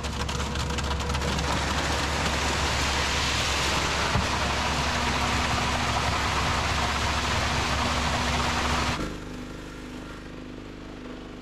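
An engine running steadily under a constant noisy rush. About nine seconds in, the sound drops suddenly to a quieter, steady engine hum.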